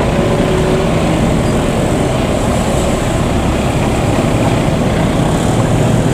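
Steady engine and road noise of a car and motorbikes driving slowly over a railway level crossing.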